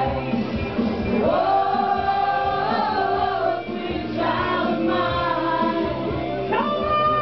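Loud music with singing, a voice holding long gliding notes over a steady bass line.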